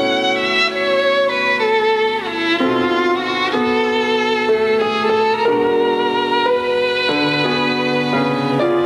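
Violin music: a melody of held notes, with one note sliding down a little after two seconds.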